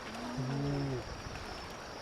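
Brief low voices of people in the crowd, lasting under a second, over a steady background hiss.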